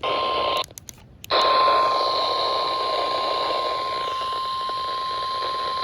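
NOAA Weather Radio warning alarm tone, a single steady tone of about 1050 Hz over radio static. It drops out briefly about half a second in, then resumes and holds. It signals that a warning, here a flash flood warning, is about to be broadcast.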